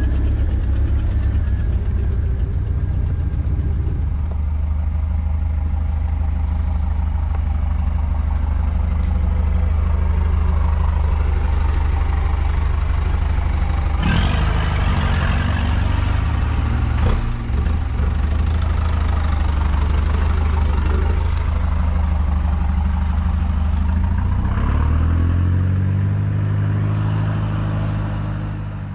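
Off-road jeep engine running steadily at low revs, with a sharp knock about halfway through; near the end the revs rise as the jeep moves off.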